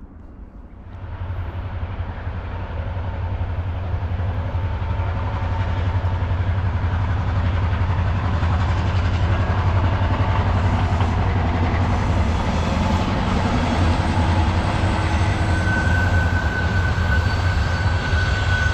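A train approaching and passing close by: loud, its rumble building over the first few seconds into the steady noise of the rolling cars, with a steady high tone joining about three-quarters of the way through.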